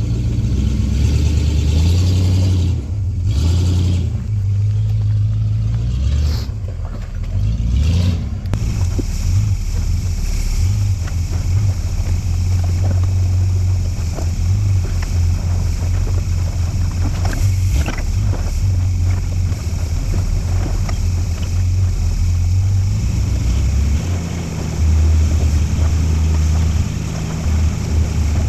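Off-road 4x4 engine running at low revs. The revs shift up and down as it crawls over rough ground, with scattered clicks and knocks.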